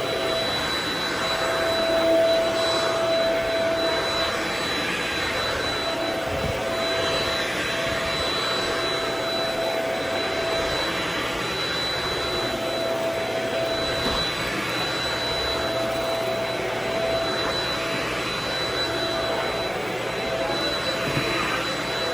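Vacuum cleaner running steadily while working over a rug: a rush of air with a high steady whine from the motor and a lower hum that fades in and out.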